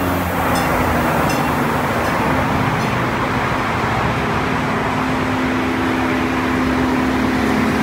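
Stadler GTW diesel multiple unit rolling slowly into the platform: a steady rumble of wheels and diesel engine, with a steady hum that grows louder in the second half as the central power module passes.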